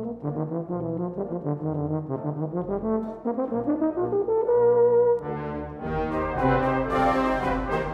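Solo euphonium playing a lyrical melody over brass band accompaniment. About six seconds in, the full band comes in louder and brighter, with percussion strokes.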